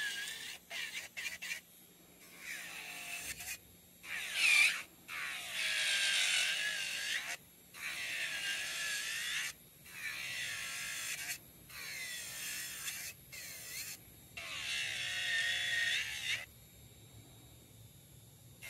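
Melody Susie SR3-Jade rechargeable nail drill (30,000 RPM) filing down the product on a fingernail to thin it for a soak-off. A high-pitched whine comes in repeated stretches of a second or two with short breaks between them, its pitch dipping and rising as the bit is worked. It stops about three-quarters of the way through.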